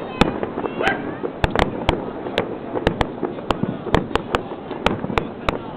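Fireworks going off in quick, irregular succession: many sharp bangs, roughly three or four a second, with a short whistle about a second in.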